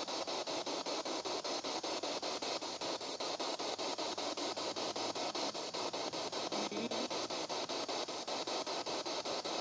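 Spirit box, a radio scanner sweeping rapidly through stations: a steady static hiss chopped into quick, even pulses several times a second.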